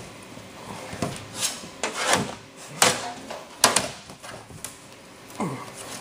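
A large sheet-metal panel being hand-bent over a metal-topped table to preform its edge: the sheet flexes and rubs on the table with a series of sharp pops and clatters, the loudest a little under three seconds and just before four seconds in.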